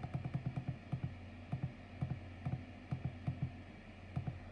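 Sangean HDR-15 clock radio's front buttons clicking, pressed repeatedly in quick runs and then single presses, stepping the preset number up while storing a station. A low steady hum lies underneath.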